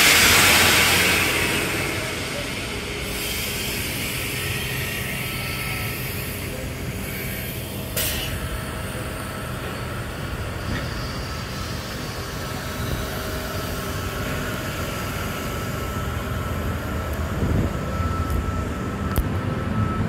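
A train at a station platform: a loud hiss at the start that dies away over about two seconds, then steady rumble and hum, with a sharp click about eight seconds in.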